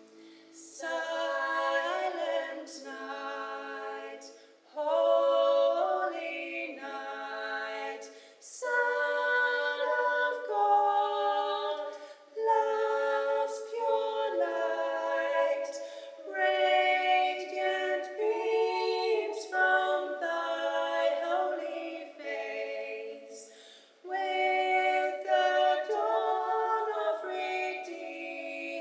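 Two women's voices singing a slow carol-style melody in close harmony, in phrases of a few seconds with brief breaths between.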